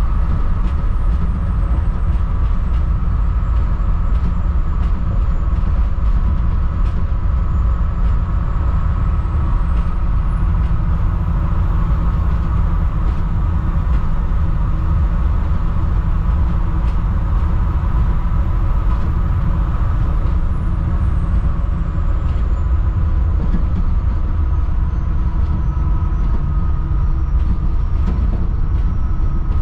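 2007 Thomas HDX school bus under way, its Mercedes-Benz diesel engine running with a steady low rumble and light rattles. A faint high whine rises about ten seconds in, holds, then falls away after about twenty seconds.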